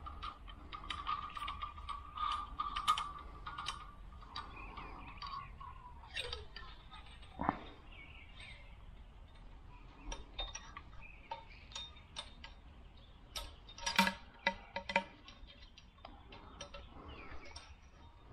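Light metallic clinks, taps and scrapes of motorcycle front-fork parts being handled while a damper cartridge and a coil spring are fitted into a fork tube, with a tight cluster of clinks near the end. A steady high tone sounds during the first four seconds.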